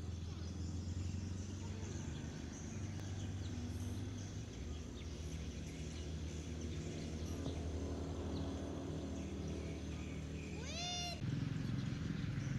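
Steady low hum of outdoor background, with a single short rising call from an animal, cat-like, about ten and a half seconds in; just after it the background turns abruptly louder.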